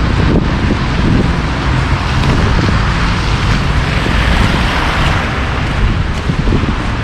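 Wind buffeting the microphone with a constant low rumble, over a steady outdoor hiss that swells about four to five seconds in.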